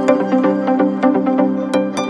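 Electronic background music: sustained held tones with light percussive hits.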